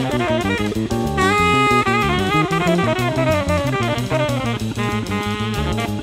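Recorded 1970s jazz-fusion band playing: a busy drum kit and bass under moving melodic lines, with one long held note about a second in.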